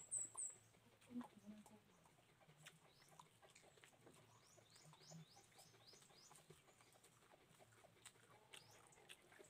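Near silence, with a faint run of short, high, falling chirps from a small bird, about three a second from roughly three to six seconds in, and a few scattered light clicks.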